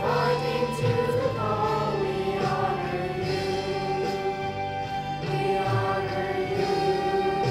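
A choir singing slowly, holding long notes.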